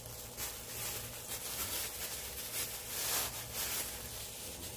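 Irregular rustling and handling noises of microphone accessories and their packaging being unpacked, in short bursts every half second or so, over a steady low hum.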